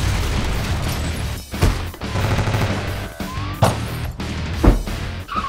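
Music laid over loud sound effects: a dense clatter of rapid bangs, with heavy hits about one and a half, three and a half and four and a half seconds in.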